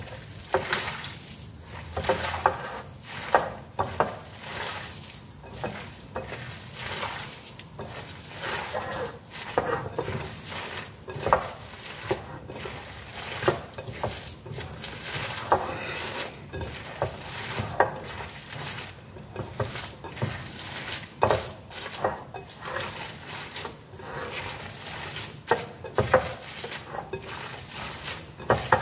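Hands squeezing and tossing a wet shredded-vegetable dumpling filling in a glass bowl: an irregular run of squelching, rustling strokes, about one or two a second, with light knocks among them.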